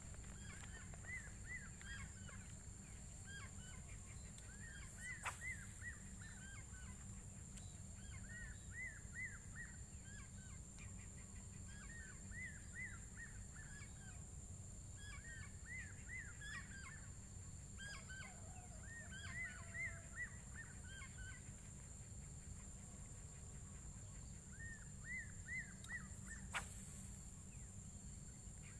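A bird calling over and over in short phrases of rapid, arching chirps, one phrase every three to four seconds, over a low steady rumble and a thin high whine. Two sharp clicks stand out, one early and one near the end.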